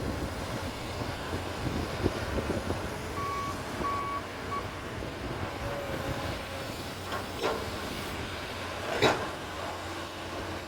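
Komatsu PC200 hydraulic excavator's diesel engine running steadily, with three short warning beeps from its alarm a few seconds in. Two sharp knocks follow near the end, the second the loudest.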